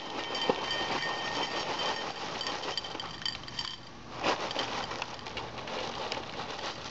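Honey Nut Chex cereal poured from its box into a ceramic bowl: a continuous crackly patter of small pieces landing on the bowl and on each other, with a louder clatter about four seconds in.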